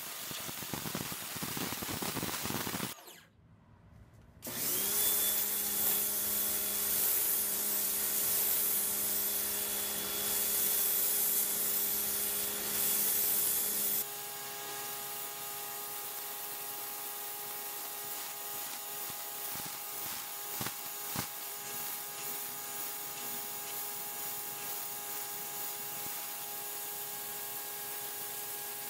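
Simoniz 1800 PSI electric pressure washer running, its motor and pump humming steadily under the hiss of the water jet blasting concrete. After a brief near-silent break about three seconds in, the motor spins up and runs on. About 14 seconds in, the sound drops to a quieter steady hum with spray.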